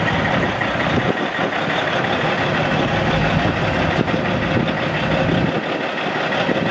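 Caterpillar C15 Acert 14.6-litre inline-six turbo diesel in a semi truck idling steadily.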